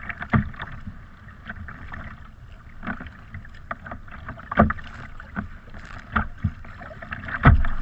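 Choppy waves slapping against a sea kayak's hull, irregular thumps over a steady wash of water, the loudest near the end.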